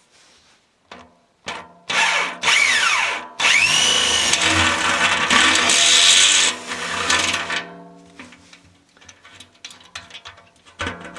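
Power drill with a step bit cutting into the wall of an aluminum brew kettle: a few short bursts, then a loud run of about four seconds that stops suddenly, followed by fainter ringing.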